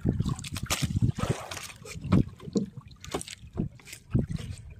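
Irregular knocks and thumps of handling gear aboard a small fishing boat, with water splashing against the hull.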